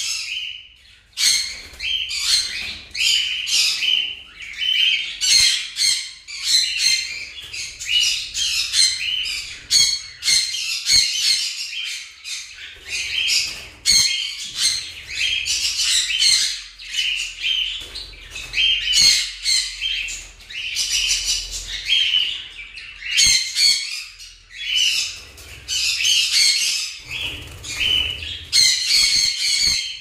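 A flock of caged jumbo budgerigars chattering, with dense overlapping chirps and squawks.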